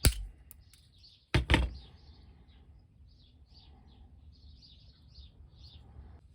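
Cutters snipping a too-long backpack peg pin: one sharp snap at the start and a quick double snap about a second and a half in. Small birds chirp faintly throughout.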